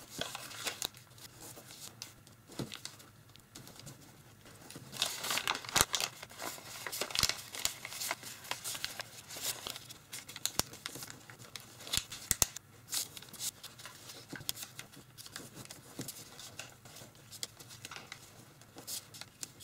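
A sheet of origami paper being folded by hand: irregular rustling and crinkling, with short sharp clicks and crackles as the paper is opened, squashed and creased flat against the table.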